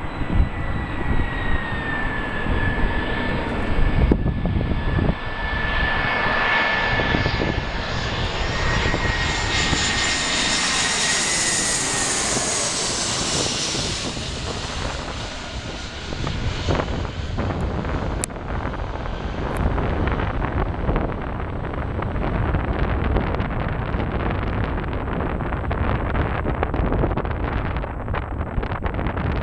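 Airbus A321 jet airliner on final approach passing low overhead. A high engine whine and rushing jet noise grow to a peak about twelve seconds in as it passes, then fade to a low rumble as it lands and rolls away down the runway.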